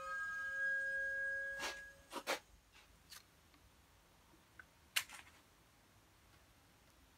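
Homemade glue web shooter's steady whine and hiss tailing off and stopping within the first two seconds, followed by a few clicks and one sharper click about five seconds in.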